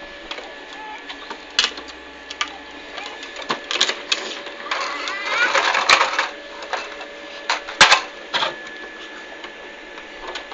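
Hard plastic wheels of a child's Massey Ferguson pedal tractor and its trailer rattling and clattering over tarmac, with scattered sharp knocks. A brief wavering squeal comes a little past halfway.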